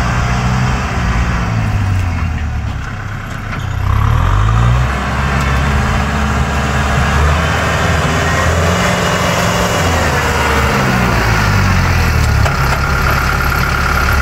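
Diesel engine of a farm tractor running under load as it pulls a disc plough through dry, stony soil, its pitch rising and falling as the load changes. The level dips briefly about three seconds in, then comes back up.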